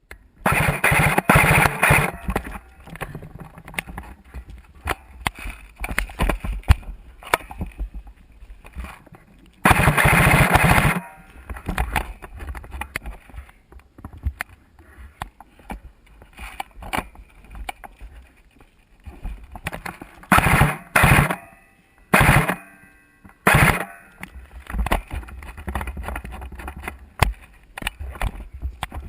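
Airsoft SCAR-L rifle firing full-auto bursts, heard from a camera mounted on the gun: a long burst at the start, another about ten seconds in, and several short bursts after about twenty seconds, with scattered clicks and handling noise between.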